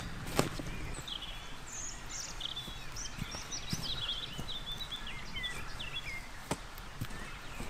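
Two sharp strikes of a digging tool into the ground, one about half a second in and one near the end, over birds singing a run of short chirps and whistles.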